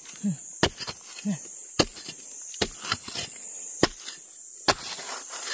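Hand spade chopping into the ground: about five sharp strikes, roughly one a second, over a steady high insect buzz.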